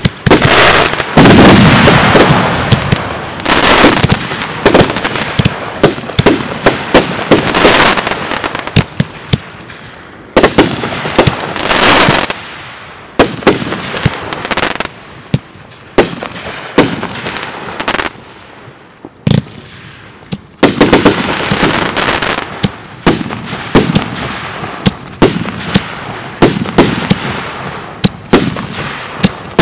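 Aerial fireworks bursting overhead in rapid succession, sharp bangs one after another with crackling in between. They thin out to scattered reports about halfway through, then pick up again densely.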